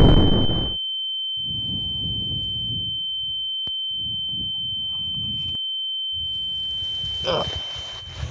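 A steady high-pitched ringing tone, the film's ear-ringing effect for a person deafened by a bomb blast. The rumble of the explosion dies away in the first second under it. The tone fades out near the end, where a short noise is heard.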